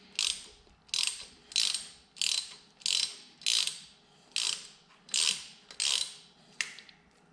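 Ratchet wrench clicking through about ten quick back-strokes, just under two a second, while backing out a small cylinder-head bolt; the strokes stop near the end.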